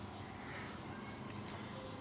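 Steady low background noise with a few faint, short calls from hens.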